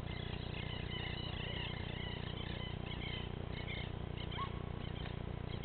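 Crickets chirping in the field: many small high chirps over a steady low hum.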